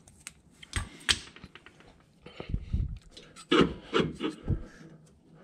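A hand gripping and working a loose, worn rear strut dampener on a 2006 Ford Mustang, which scrapes and rubs in its mounts with a few sharp knocks in several short, irregular bursts.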